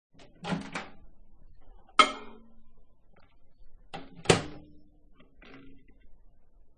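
A microwave oven being handled: a few clicks and knocks of its door and controls, two sharp clunks about two seconds and about four seconds in, each with a brief ring.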